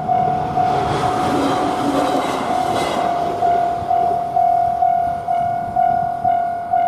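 Japanese railroad crossing warning bell ringing its repeating 'kan-kan' ding about twice a second. A train passes over the crossing, its rumble and wheel clatter swelling and fading within the first four seconds or so.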